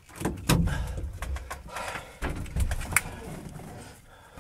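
Handling noise from a small camera being moved about inside a light aircraft's cockpit: irregular bumps, clicks and scrapes over a low rumble.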